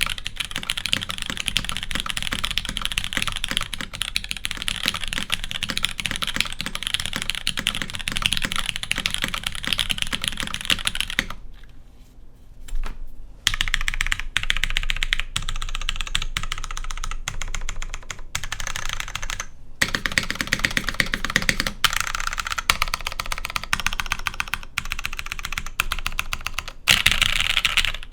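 Custom tenkeyless mechanical keyboard with an aluminum plate, lubed tactile MX Ergo Clear switches and GMK keycaps, typed on quickly in a dense run of key clicks and clacks. The typing pauses briefly about twelve seconds in, then picks up again.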